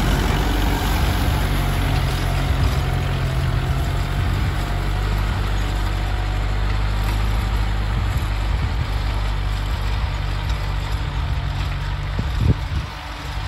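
Kubota MU4501 tractor's four-cylinder diesel engine running steadily under load while pulling a tined cultivator through the soil, growing slightly fainter as it moves away. One short sharp knock near the end.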